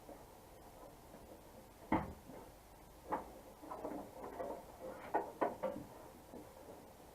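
Plastic wiring-harness connectors and parts being handled inside a pickup truck door: light rustling with several sharp clicks and knocks, the loudest about two seconds in and a close pair a little after five seconds.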